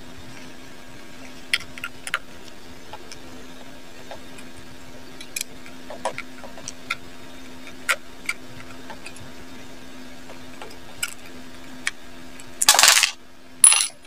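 Small metal clicks and scrapes of a screwdriver unscrewing the lever screw beside an electric hair clipper's blade, over a steady low hum. A brief louder rushing noise near the end.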